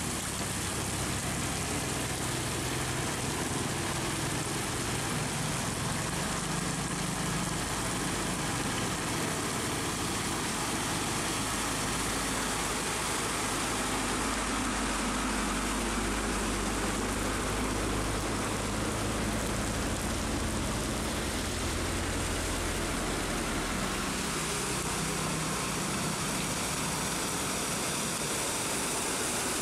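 Steady heavy rain, with the low running of truck engines as trucks drive past through floodwater on the road, swelling and fading as they pass.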